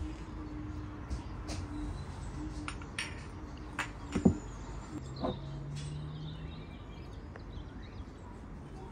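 Kitchen handling sounds: scattered clinks and knocks of dishes and utensils being set down and moved, a few seconds apart, the loudest about four seconds in, over a faint steady hum.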